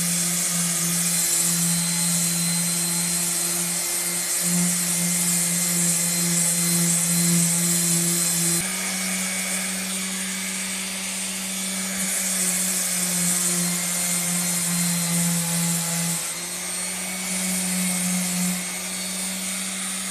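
Small handheld electric sander running steadily, its pad grinding rust off a steel machete blade: a motor hum under a hissing scrape. The hum shifts pitch twice, a little higher about eight seconds in and a little lower about sixteen seconds in, as the pressure on the blade changes.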